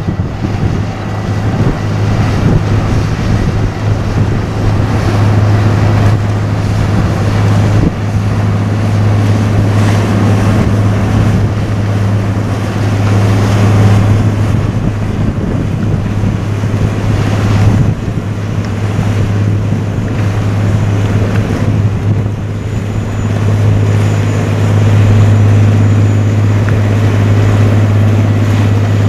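Steady low drone of a container ship's engine as it passes close by, with wind buffeting the microphone and the wash of water at its bow.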